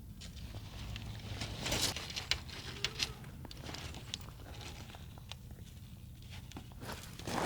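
Scattered crunches and soft taps of movement in snow, a few louder ones about two and three seconds in and again near the end, over a low steady rumble.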